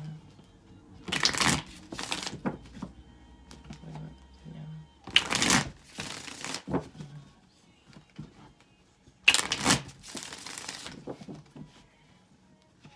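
A deck of tarot cards being shuffled by hand, in several short bursts of card noise a few seconds apart.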